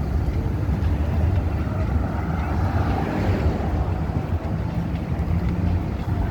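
Steady outdoor street ambience: a continuous low traffic rumble with wind buffeting the microphone.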